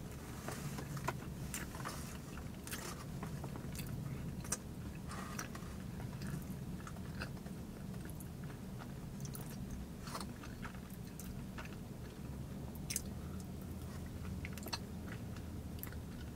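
Close-up chewing of a chocolate-glazed donut topped with peanuts and caramel, with scattered short mouth clicks and small crunches. A steady low hum runs underneath.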